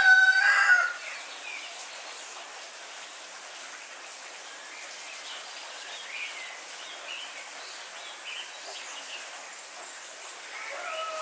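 Steady rain falling, with a rooster crowing loudly over it: the end of one crow in the first second, a few faint bird chirps in the middle, and another long crow starting near the end.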